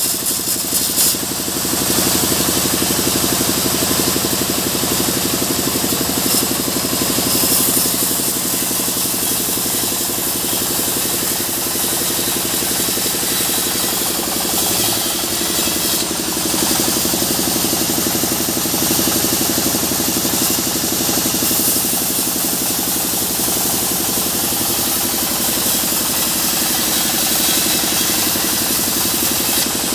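A band sawmill running steadily while a mahogany slab is fed by hand through the blade: a constant machine hum with the hiss of the cut on top.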